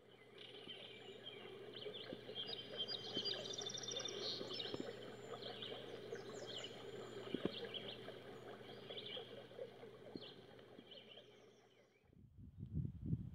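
Songbirds chirping and singing, with one quick trill, over a steady low background noise. The sound fades in at the start and fades out near the end.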